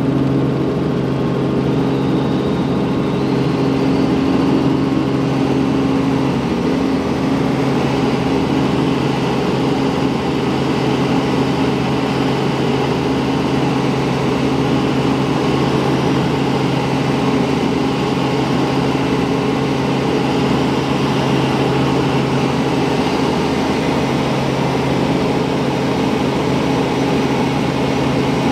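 Helicopter engine and rotor noise heard from inside the cockpit: a steady, loud drone with an even low hum during takeoff and climb-out.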